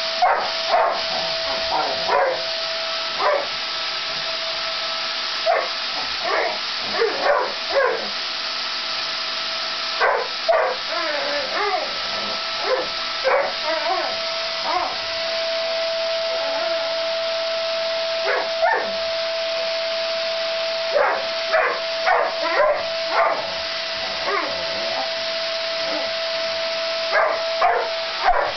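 Vacuum cleaner running steadily with a whining motor tone, while a Labrador barks, yips and whimpers at it in repeated bursts with short pauses between.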